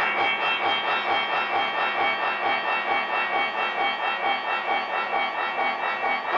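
V-shaped electric guitar played through an amplifier as experimental noise: a dense, rasping drone with a few held high tones, pulsing evenly several times a second.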